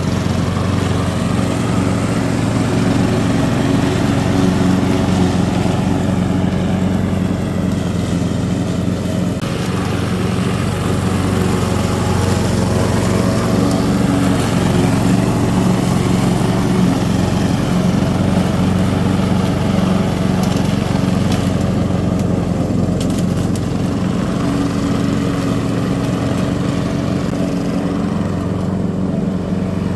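Self-propelled walk-behind petrol lawn mower with a Honda four-stroke single-cylinder engine, running steadily while cutting grass.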